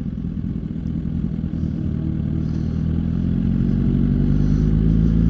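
Motorcycle engine running under way, its pitch and loudness rising slowly as it speeds up.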